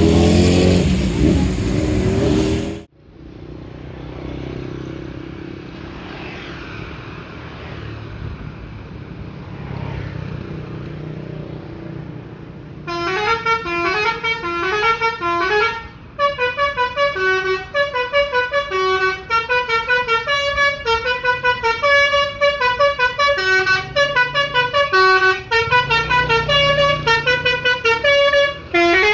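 Bus engine noise stops abruptly about three seconds in, leaving a quieter low engine rumble. About 13 seconds in, a tour bus's 'telolet basuri' multi-tone musical horn starts playing a fast tune of short stepped notes, several a second, over the engine.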